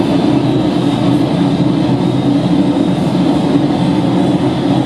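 Rome Metro Line C train running at speed through a tunnel, heard from inside the car as a steady, loud rumble of wheels on rails and running gear.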